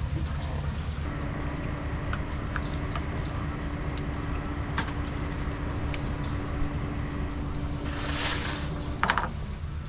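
Steady wind rumble on the microphone, with a steady hum that stops about 9 s in, a few light clicks, a short hiss near the end and a brief clatter just after it.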